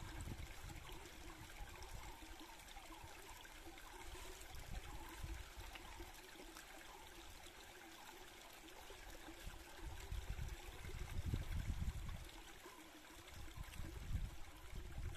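Faint, steady rush of a flowing forest stream, with low rumbles about ten seconds in and again near the end.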